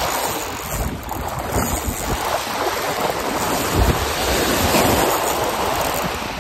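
Wind buffeting the microphone, with gusty low rumbles and a low thump a little before the 4-second mark, over small waves lapping on a pebble shore.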